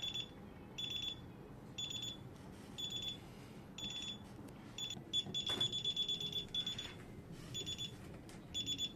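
DSC alarm keypad buzzer beeping about once a second, each short high beep with a fast buzzing flutter, and one longer beep a little past the middle.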